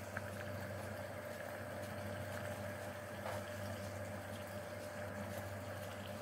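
Steady low mechanical hum with a faint high whine running through it, and a few soft ticks.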